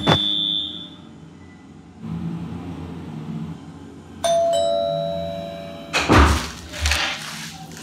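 A doorbell chimes two notes, ding-dong, about four seconds in, ringing for nearly two seconds: the awaited food delivery arriving at the door. A few thumps follow.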